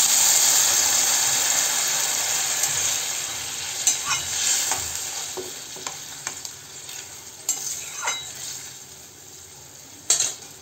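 Loud sizzling hiss as hot water hits a hot metal pan of frying banana blossom and potatoes, dying away over several seconds as the liquid settles toward a simmer. A spatula scrapes and taps against the pan a few times, with a sharper click near the end.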